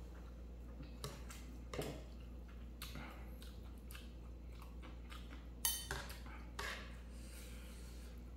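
A person chewing and eating ramyeon, with scattered short clicks of utensils against a frying pan; the sharpest click comes a little past halfway. A steady low hum runs underneath.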